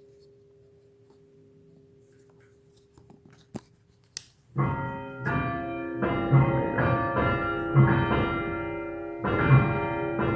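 Faint steady hum with a couple of sharp clicks, then keyboard music begins suddenly about four and a half seconds in, full chords with a strong low note recurring about every second and a half.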